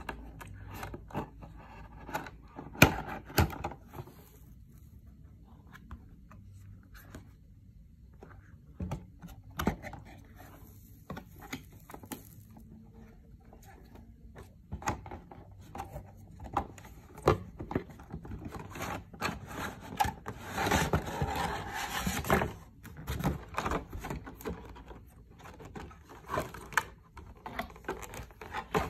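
Cardboard box and clear plastic packaging being handled and opened: scattered taps, clicks and scrapes, with a longer stretch of plastic rustling about two-thirds of the way through.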